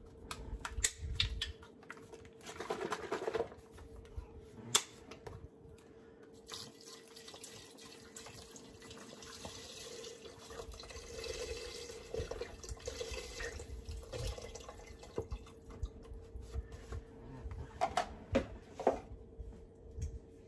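Stock poured from a carton into an Instant Pot's stainless inner pot: a steady liquid pour lasting several seconds. A few sharp clicks near the start come from the carton's cap being opened.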